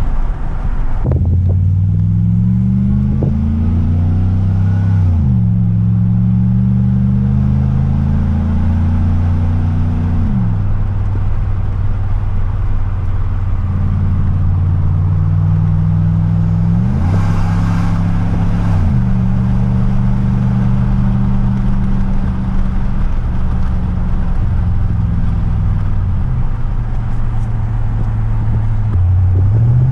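Chevrolet Silverado's 5.3-litre V8 exhaust through a Flowmaster Super 44 muffler with the resonator deleted, while driving. The pitch climbs slowly under acceleration and drops sharply at each upshift, then holds steady at cruise. A quick rise and fall comes about two-thirds of the way in.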